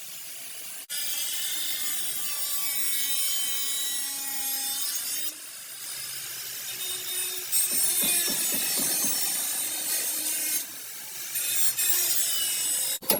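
An abrasive tool rasping steadily against a car's sheet-metal body panel during bodywork, with brief pauses partway through.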